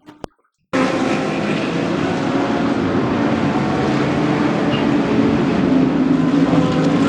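GT3 race car engines running at speed past a trackside corner, a dense, steady mix of engine notes. It starts suddenly less than a second in, after a brief dropout.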